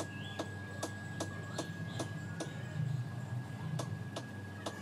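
A run of sharp ticks, about two a second and not quite evenly spaced, over a steady low hum.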